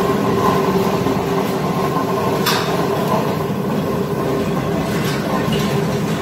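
Commercial tilting wet grinder running: a steady motor hum and grinding rumble, with a single short click about two and a half seconds in.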